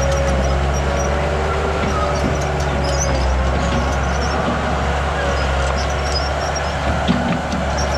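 Heavy earthmoving machine's engine running steadily under work, with a faint wavering whine and short high squeaks, and a knock about seven seconds in.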